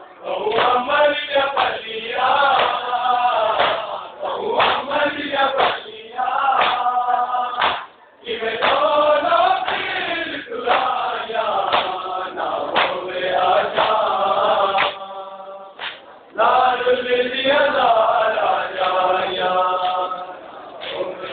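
A group of men chanting a noha, a Shia mourning lament, in unison, with hands beating on bare chests in matam. The chanting breaks off briefly about eight seconds in and again around fifteen seconds.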